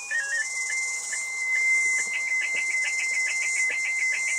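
Slow-scan television (SSTV) picture transmission audio: a short stepping start-up tone, then a steady high tone with a rapid, regular pulsing as the picture is sent line by line, over a constant radio hiss.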